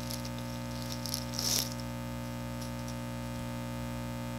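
Steady electrical hum made of several fixed tones, with a short rustle of packaging being handled about one and a half seconds in, as the monitor's power cord and plug are taken out of the box.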